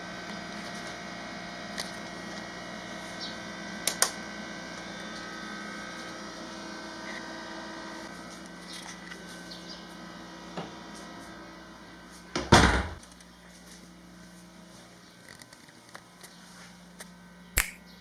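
A steady hum in a small room, broken by a few knocks and clicks: two clicks about four seconds in, a louder thud about twelve and a half seconds in, and a sharp click near the end.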